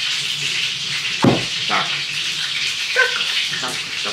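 Steady hiss of running tap water, with a sharp knock about a second in and a couple of lighter knocks later.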